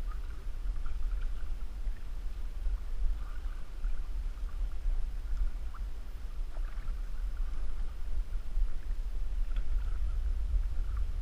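Canoes being paddled on open lake water: faint splashes of paddle strokes and water on the hull now and then, under a steady low rumble of wind on the microphone.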